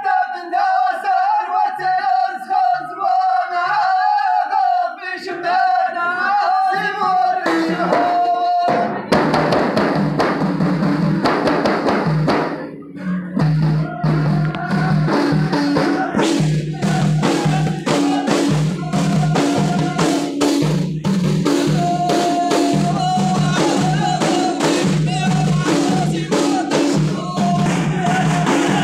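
Ahidous troupe of men singing together in unison, accompanied by hand-struck frame drums (tallunt). For the first seven seconds or so the voices carry the chant over single drum strokes, roughly one every three-quarters of a second; from about nine seconds in, the drums beat fast and loud together under the singing.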